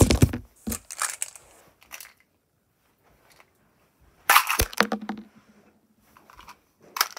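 Handling noise: knocks and rustling as the phone is moved, then loud crinkling and crackling of a small plastic wrapper being worked open by hand, strongest a little after four seconds.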